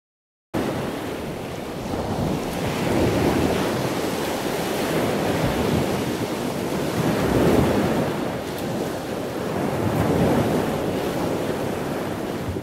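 Surf washing onto a sandy beach, swelling and easing in slow surges every few seconds, with wind rumbling on the microphone. The sound starts abruptly and cuts off suddenly near the end.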